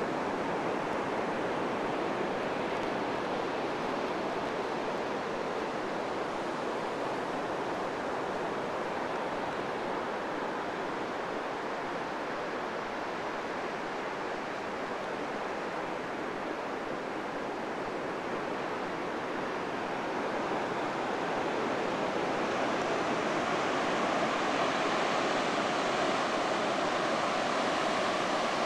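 Ocean surf breaking and washing onto a sandy beach: a steady rushing that grows a little louder and brighter near the end.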